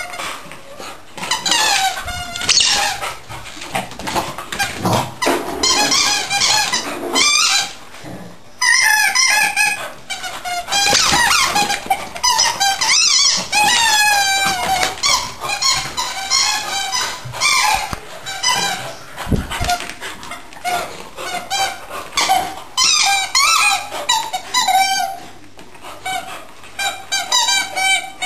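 A dog's squeaky toy squealing over and over as a beagle chews and squeezes it, each squeal sliding up or down in pitch, with short pauses about 8 and 25 seconds in.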